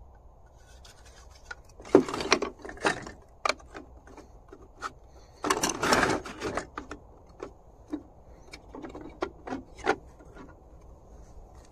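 Hard 3D-printed plastic Scar Pup body parts clacking and knocking as they are handled, fitted together and set down on wooden deck boards. Scattered clicks and knocks, busiest about two seconds in and again around six seconds in.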